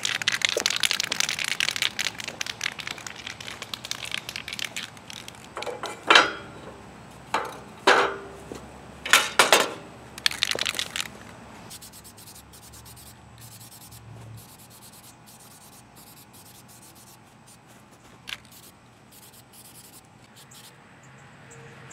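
Aerosol spray-paint can: the mixing ball rattles fast as the can is shaken, then about six short spray bursts hiss out, followed by fainter scattered rattling.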